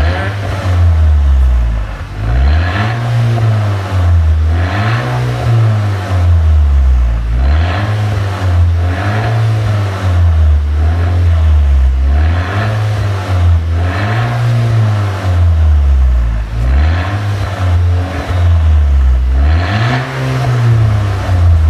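2013 Audi A5's 2.0 TFSI turbocharged four-cylinder engine revved over and over, rising and dropping back about every two to three seconds, on an engine tune set to pop and crackle as the revs fall.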